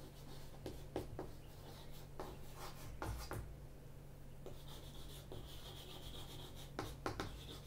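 Chalk writing on a chalkboard: faint, short scratching strokes and taps as letters are written.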